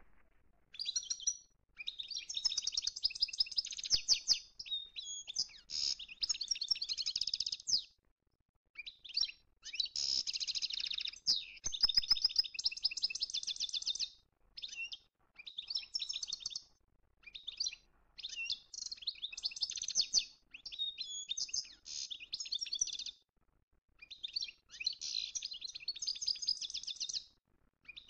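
A small songbird singing: fast, high twittering and trilling phrases of one to four seconds, broken by short pauses.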